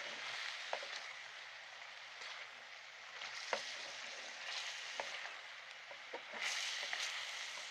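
Chicken pieces sizzling in a karahi as they are stir-fried until their released water cooks off, with sharp clicks of the spoon against the pan now and then. The sizzle swells louder about six and a half seconds in.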